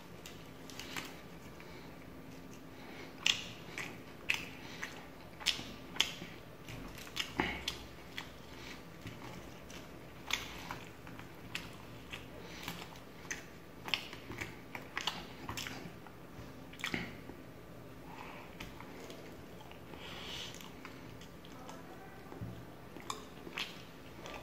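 Close-up chewing and biting of tandoori chicken lollipop, with irregular wet mouth clicks and smacks.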